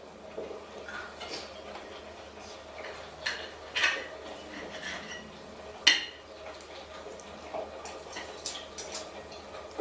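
A series of light, irregular clinks and knocks, like hard household objects being handled or knocked about, the sharpest about four and six seconds in.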